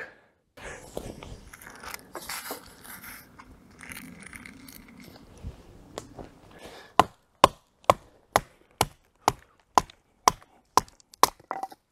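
Wood being chopped: after several seconds of faint rustling, a steady run of sharp chopping knocks starts about seven seconds in, about two a second.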